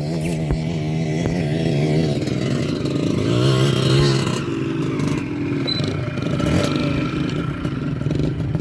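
Motocross dirt bikes running and revving, the engine pitch rising and falling with the throttle, loudest about four seconds in.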